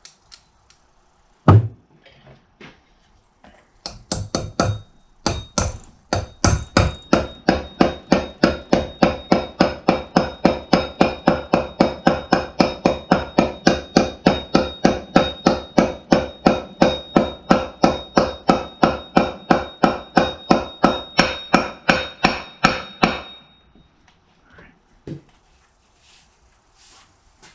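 Hammer blows on a 1.25-inch socket used as a driver, seating a new bearing race in a Scag mower's front caster wheel hub. One strike comes first, then after a pause a long steady run of metal-on-metal blows, about three a second, each with a ringing tone, stopping a few seconds before the end.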